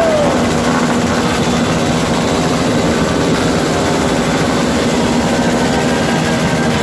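Many motorcycle and scooter engines running at once, a loud, steady mass of engine sound.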